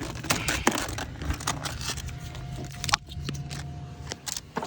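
Plastic Christmas-light clips and a light strand being handled, giving irregular clicks and crinkling rustles.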